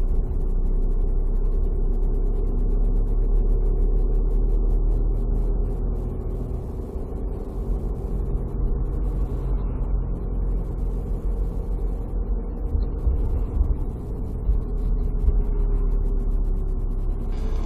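Car on the move: a steady low rumble of engine and tyre road noise, with a faint held hum underneath.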